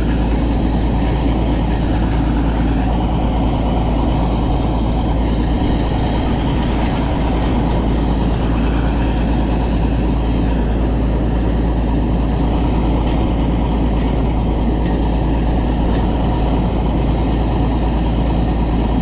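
Combine harvester running steadily while harvesting clover, a constant low drone with no change in level.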